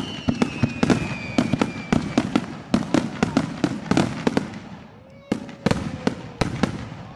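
Aerial firework shells bursting close overhead, heard from almost directly beneath: sharp bangs in rapid succession, thinning out after about four and a half seconds, with a last few bangs near the end. A high, slightly falling whistle runs through the first two seconds.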